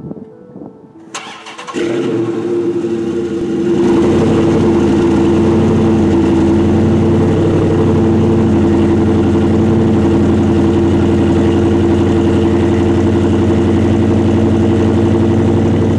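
Dodge Challenger SRT8's 392 HEMI V8 with Flowmaster exhaust starting up: it cranks and fires about a second in, builds over the next couple of seconds, then settles into a steady, loud idle.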